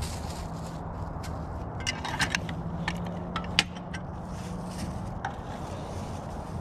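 Light clicks and knocks of objects being handled, a small cluster about two seconds in and the loudest single knock about three and a half seconds in, over a steady low rumble.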